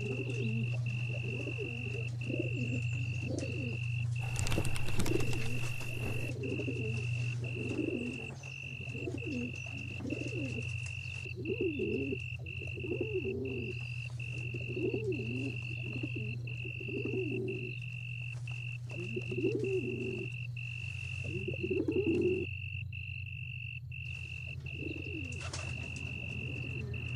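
Pigeons cooing again and again over a low droning horror-music bed with a steady high tone. A brief rushing noise swells about five seconds in.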